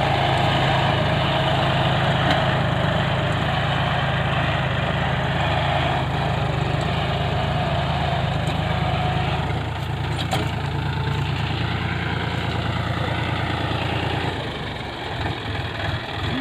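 Engine of a ploughing machine running steadily, its low note fading and turning uneven about fourteen and a half seconds in.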